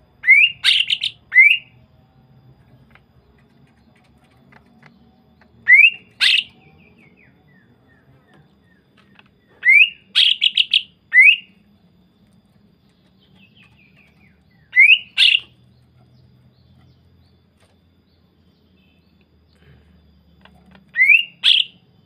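Cucak ijo (greater green leafbird) singing: five short bursts of sharp, rising whistled notes, each a second or less long, spaced several seconds apart.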